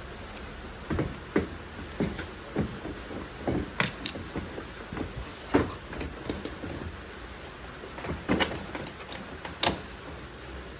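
Irregular knocks, clicks and clunks, a dozen or so spread unevenly, of parts and tools being handled during reassembly work on a car's front end, over a steady low hiss.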